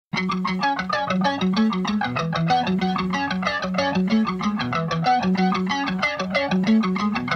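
Background music: an electric guitar picking a fast, repeating pattern of single notes.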